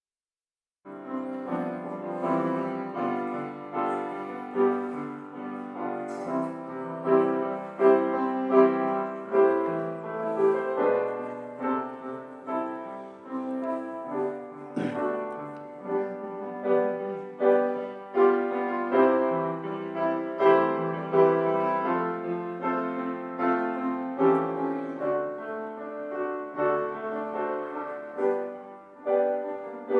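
Piano playing a slow piece, beginning about a second in after silence.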